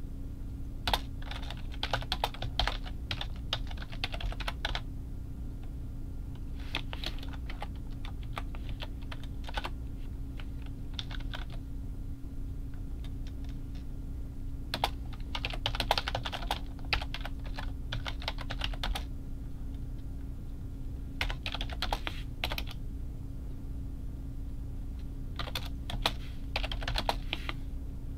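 Typing on a computer keyboard: five runs of quick keystrokes with short pauses between them, over a steady low hum.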